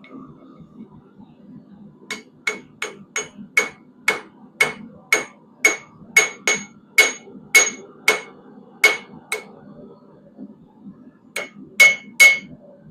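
Hand hammer striking hot quarter-inch square steel bar stock on an anvil, with a ringing clang at each blow: a run of about sixteen strikes at roughly two a second, a pause of about two seconds, then three more.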